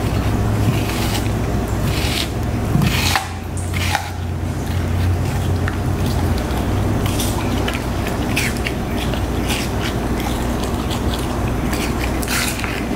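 Siberian husky crunching and chewing a piece of green apple, with irregular crisp bites and crunches spread through, over a steady low hum.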